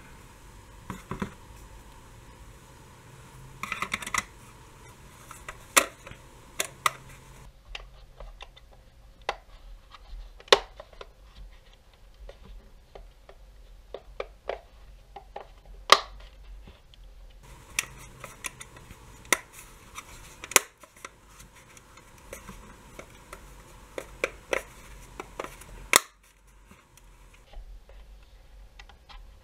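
Handling noise from a small plastic Godox LED64 video light: irregular sharp clicks and knocks of hard plastic parts being fitted and moved, with a few louder snaps.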